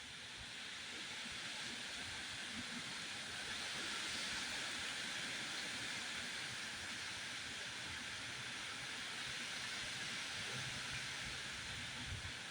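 Strong wind blowing: a steady rushing hiss that swells over the first few seconds and then holds, with some low rumbling of gusts on the microphone.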